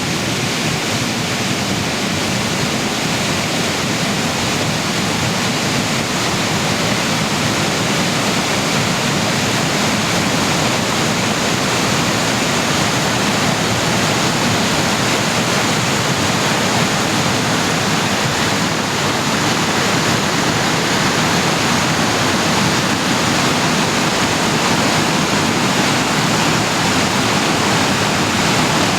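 Waterfall in full flow after good rains: a loud, steady rush of falling water.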